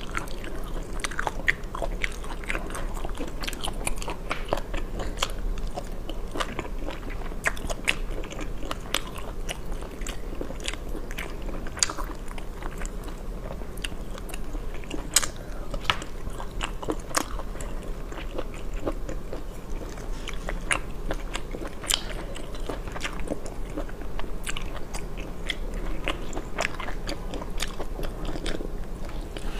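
Close-miked eating of spicy snails in chili oil: wet chewing, lip smacks and sucking at the shells, with scattered sharp clicks as the shells are handled and bitten.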